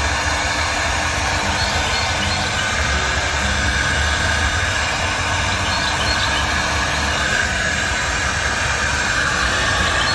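Heat gun blowing steadily while shrinking heat-shrink tubing onto a bundle of wires.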